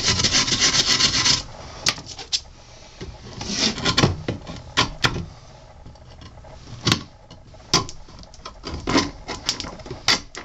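A hand wire brush scrubbing fine flakes of old paint off the weathered wooden side of a beehive super. Dense, continuous scrubbing for about the first second and a half, then scattered short strokes and scrapes.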